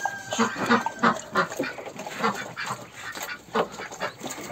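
Domestic ducks quacking, many short calls in quick succession.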